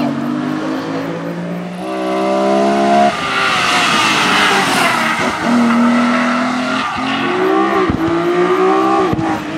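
BMW E36 rally cars at full throttle on a tarmac stage, engines revving high and changing up through the gears. The pitch holds steady for about a second near the start, then climbs again in several rises, each broken off sharply.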